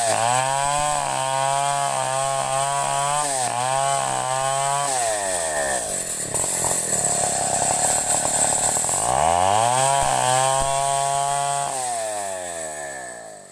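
Two-stroke chainsaw running at high revs, its engine note wavering with the throttle. About five seconds in the pitch sags and the sound turns rough and noisy for some four seconds, then climbs back up before fading out near the end.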